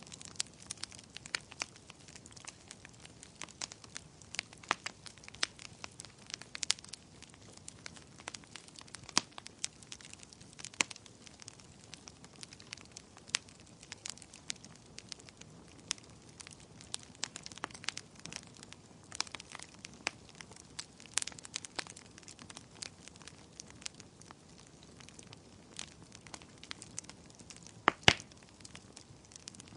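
Fireplace fire crackling: irregular sharp snaps and pops over a faint steady hiss, with one louder double pop near the end.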